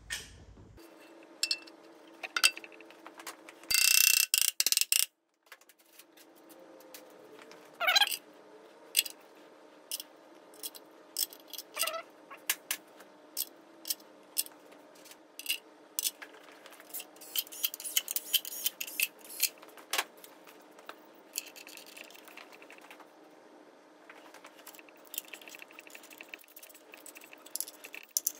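Torque wrench and bolts being run into the cast-aluminium rear cover of a 6.0 Powerstroke diesel block: scattered metal clicks and clinks with ratcheting, and a loud burst of noise about four seconds in.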